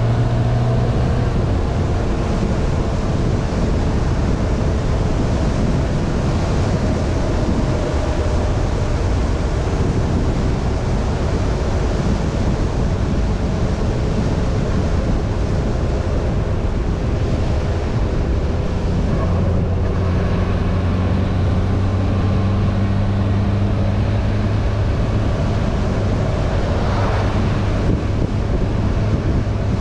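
Yamaha inline-four motorcycle cruising at a steady speed, its engine hum mixed with heavy wind rushing over the camera microphone. The engine note fades under the wind in the middle and comes back stronger in the second half.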